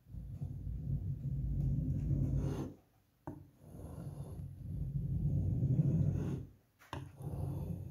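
A blade scraping and rubbing at emulsion-painted plasterboard in three long passes with short pauses between, as the poorly bonded matt paint coat is picked off in flakes.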